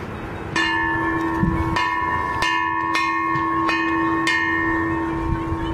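A homemade garden bell, a hanging scrap-metal cylinder, struck about six times at uneven intervals, each strike ringing on in a sustained low tone with higher overtones that carry over into the next.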